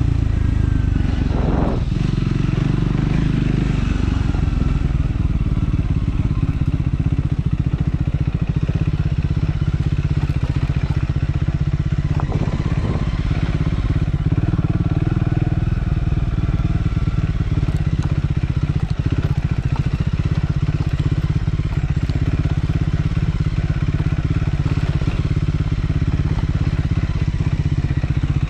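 Triumph Scrambler 400 X's single-cylinder engine running steadily as the motorcycle is ridden, its pitch holding fairly even.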